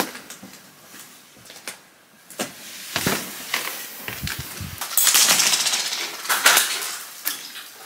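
Footsteps crunching and scraping over rubble and debris, with scattered sharp clicks and a louder, denser stretch of crunching about five seconds in.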